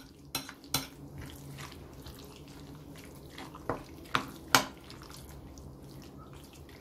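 A metal spoon stirring chopped raw chicken with egg and sour cream in a glass bowl: wet squelching, with several sharp clinks of the spoon against the glass. The loudest clink comes about four and a half seconds in.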